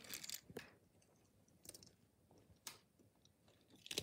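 Near silence broken by a few faint, scattered clicks and rustles of handling.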